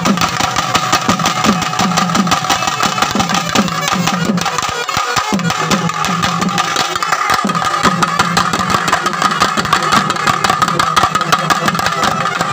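Loud festival music: rapid, unbroken drumming with a steady high tone held over it.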